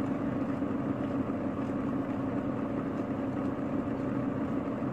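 A steady low machine hum, even and unchanging, with a few faint clicks.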